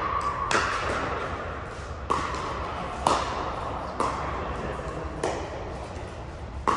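Pickleball paddles striking a hard plastic ball in a rally: about six sharp pops, roughly a second apart, each echoing in a large indoor hall.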